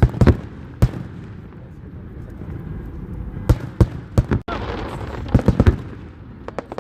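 Fireworks bursting in a string of sharp bangs, irregularly spaced, some in quick clusters of two or three.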